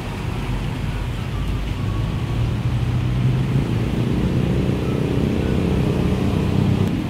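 Street traffic: a motor vehicle's engine running close by, growing louder through the middle and easing off toward the end.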